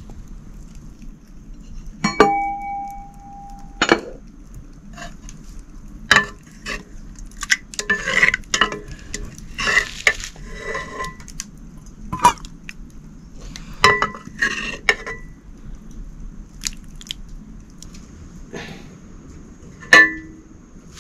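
Metal dishes and utensils clinking and knocking together: a string of irregular sharp strikes, some ringing briefly, the loudest about two seconds in and near the end.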